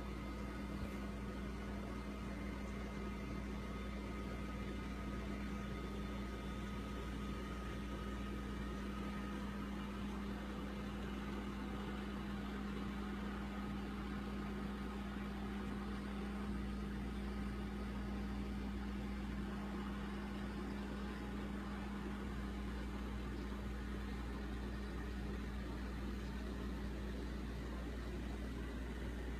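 N scale model train running on its track: a steady low mechanical hum with a faint hiss, even in level.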